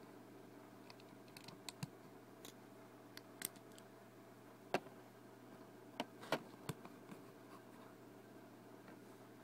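Lego plastic pieces clicking and tapping as they are picked up and pressed onto a build: a scattering of sharp, irregular clicks, the loudest a little under halfway through and a quick cluster a little after halfway.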